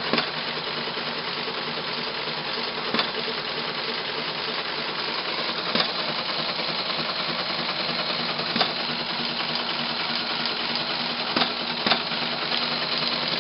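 ASR-33 Teletype running with a steady mechanical noise and a few sharp clunks spaced a few seconds apart. The noise stops abruptly near the end.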